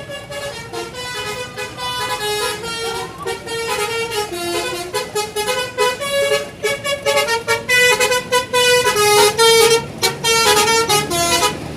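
Basuri telolet bus horn playing a fast tune: a string of loud, shifting multi-tone notes that grows louder after about four seconds.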